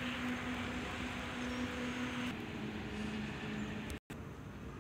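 An engine runs steadily with a hum. About two seconds in, the pitch and level drop slightly, and the sound cuts out for an instant about four seconds in.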